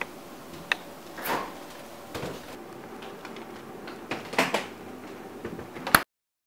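A refrigerator door being opened, with a few soft knocks and clicks of handling over low room hiss; a sharp click near the end, then the sound cuts out to silence.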